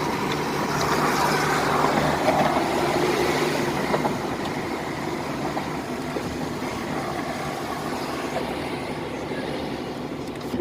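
Inside a moving KAMAZ truck cab with the window open: steady wind and road noise over the diesel engine's low running hum, noisy, a little louder in the first few seconds.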